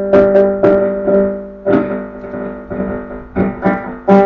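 Electric guitar strings plucked in a quick run of notes and left to ring, heard through a loud guitar amplifier. The sound is picked up by a loose humbucker resting on aluminium foil on the guitar body, so the amp carries string vibration that has passed through the wood rather than the strings directly over a pickup.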